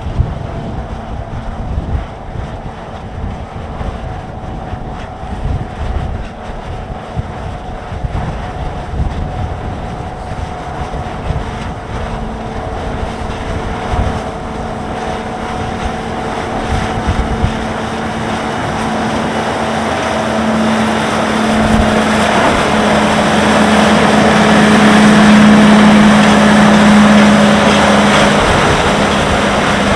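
Snowdon Mountain Railway diesel rack locomotive climbing while pushing its passenger carriage, its engine running at a steady pitch and growing louder as it draws near, loudest about 25 seconds in as it passes close. Wind buffets the microphone during the first half.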